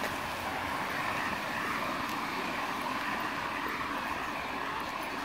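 Steady hiss of rain on a wet street, with a few faint ticks of drops.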